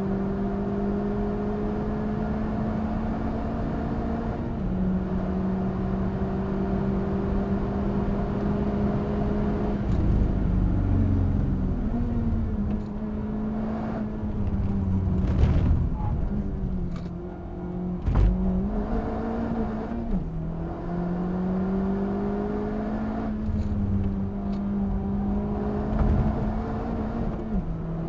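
Honda Civic Type R FK8's turbocharged 2.0-litre four-cylinder under hard acceleration on track, heard from inside the cabin with tyre and wind noise. Its pitch climbs steadily and steps down at upshifts, falls away as the car slows for a corner around ten seconds in, then climbs again. A few sharp knocks come between about fifteen and eighteen seconds in.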